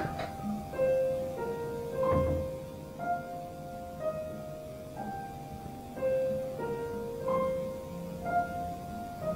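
Steinway grand piano playing a slow, quiet figure of held single notes, a new note about once a second, the figure repeating about every five seconds. A low thump comes about two seconds in.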